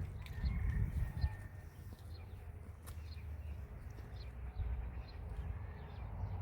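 Faint, repeated short bird chirps over a low rumble that is strongest in the first second or so, with a few sharp clicks.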